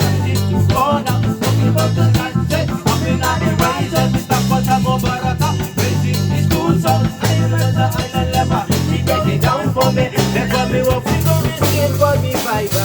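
Live band playing an instrumental passage in a reggae/ska-like groove: a steady bass line and drum kit under a wavering lead melody.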